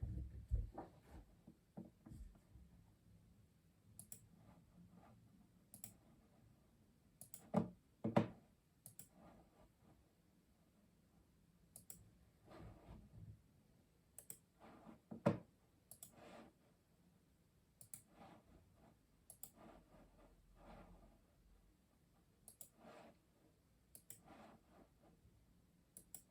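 Typing on a custom mechanical keyboard: unhurried, irregular keystrokes in short clusters with pauses between them, a few strokes a little louder than the rest, about a third and about halfway through.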